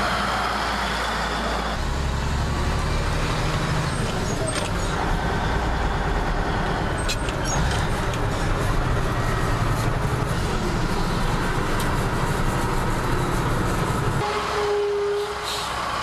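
1969 Kenworth prime mover's diesel engine running as the truck drives along, its note stepping up and down as gears are changed.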